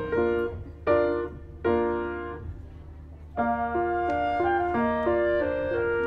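Background piano music: notes struck and left to ring, a pause in the playing about two and a half seconds in, then a flowing run of notes picking up again.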